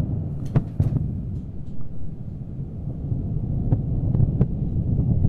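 Deep, continuous rumble of a rocket's fuel exploding and burning after it crashes nose-first into the ground, with a few sharp cracks scattered through it.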